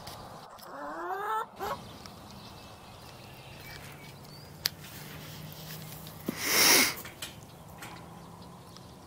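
Farmyard fowl calling: a quick series of rising calls about a second in. Later comes a loud rushing noise lasting under a second, the loudest thing, over a faint low steady hum.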